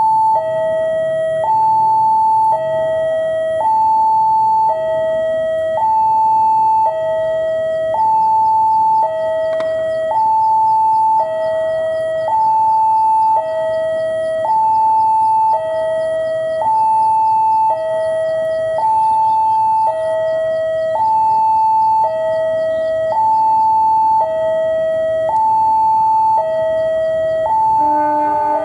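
Electronic two-tone railway level-crossing warning alarm, alternating a high and a low tone about once a second. Near the end, a lower, fuller multi-note horn comes in from the approaching diesel locomotive.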